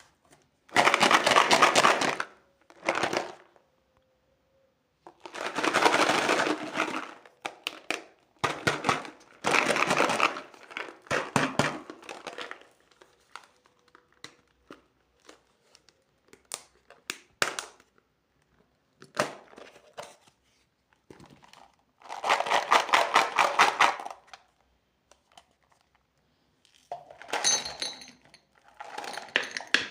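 Plastic candy wrappers and packaging crinkling and tearing open in repeated bursts of a second or two, with sharp clicks and taps in the pauses between.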